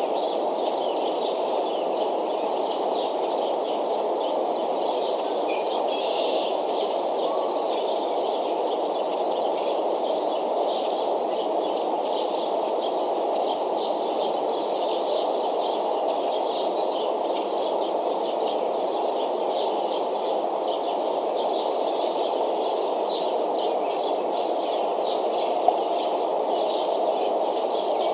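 Steady outdoor rushing noise with many quick, high bird chirps scattered over it, picked up by the eagle nest camera's microphone; one brief click near the end.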